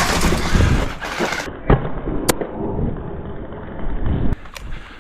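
Two sharp toy-blaster shots about half a second apart, a couple of seconds in, after a stretch of rustling noise.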